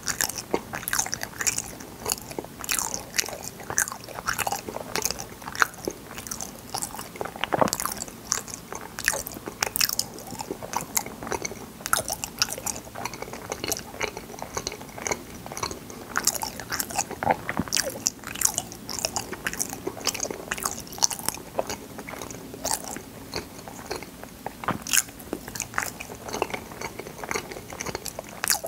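Close-miked biting and chewing of fruit yanggaeng (Korean sweet jelly), a dense, steady run of short sharp mouth clicks and smacks.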